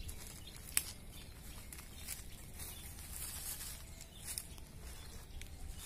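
Footsteps rustling and crackling through dry leaves and twigs, with one sharper snap under a second in, over a low steady rumble.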